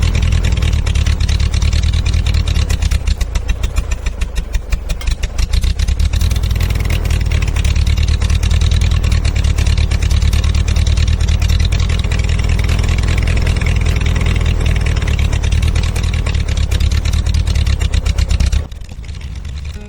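An engine running close by, loud and steady, with its speed surging unevenly about four to five seconds in; it stops abruptly near the end.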